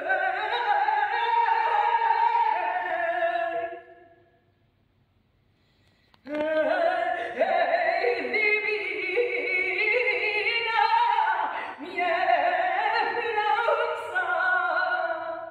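A woman singing a saeta, the unaccompanied flamenco devotional song, solo voice in long ornamented phrases. She breaks off for about two seconds a few seconds in, then takes up the next phrase.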